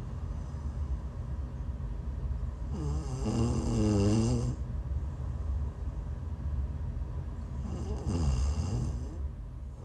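A woman snoring while sick: two pitched snores about five seconds apart, each lasting around a second and a half, with a pitch that dips and rises.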